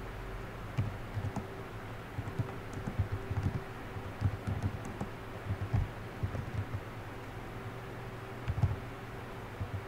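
Typing on a computer keyboard: irregular keystrokes in short runs with brief pauses, over a steady background hum.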